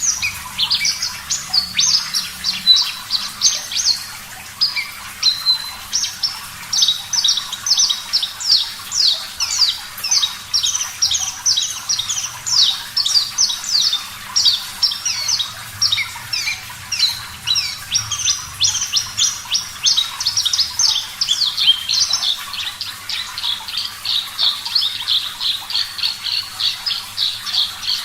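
Australasian bush lark (branjangan, parva form) singing a long, unbroken stream of short, rapid chirping notes, several a second, over a steady background of running water.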